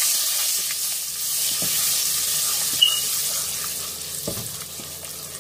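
Coriander powder sizzling in hot oil in a pot while a wooden spatula stirs it, with a few soft knocks along the way. The sizzle is strongest at first and fades toward the end.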